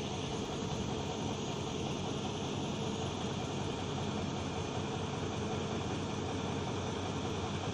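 Heavy diesel engine running steadily, with an even low hum and no change in pitch or level.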